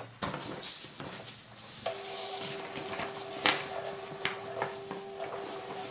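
Canon iP90 inkjet printer running its printhead cleaning cycle: a steady motor hum that starts about two seconds in, with scattered mechanical clicks and ticks from the mechanism.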